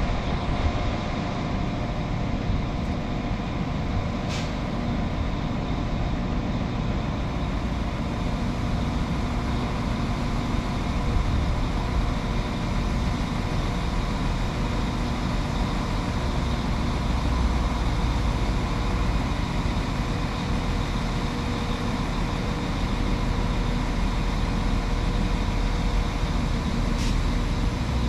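Northern class 195 diesel multiple unit standing still with its underfloor diesel engines idling: a steady rumble with a steady hum over it. A brief click sounds about four seconds in, and a couple more near the end.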